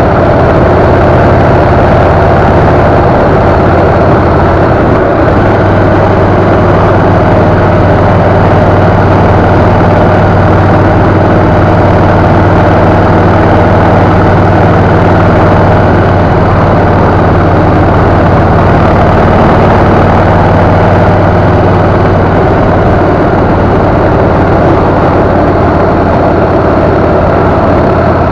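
Motorcycle engine running at a steady cruising speed, with steady wind noise over the microphone.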